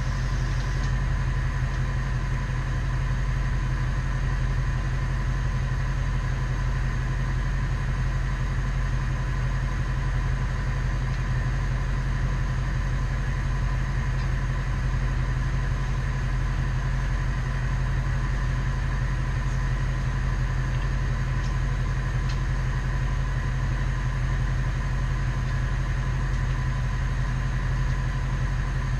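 Bucket truck's engine idling steadily, with an even low drone and a constant hum that does not change pitch or level.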